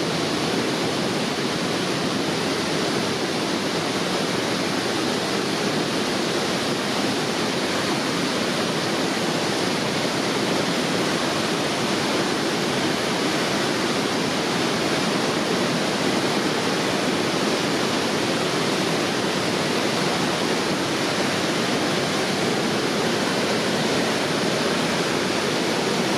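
Waterfall on a river, water pouring and splashing in a steady, even rush.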